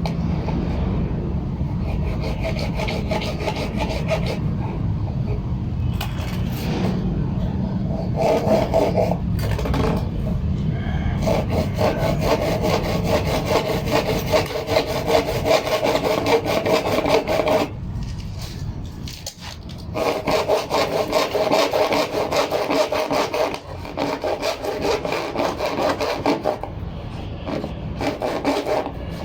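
Hand saw cutting with fast, steady back-and-forth strokes, stopping briefly about two-thirds of the way through, then carrying on.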